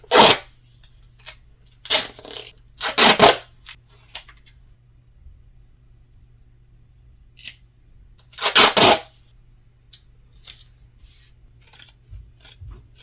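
Duct tape being worked by hand: a handful of short rasping bursts of tape pulled off the roll and cut, with lighter clicks and handling noises in between.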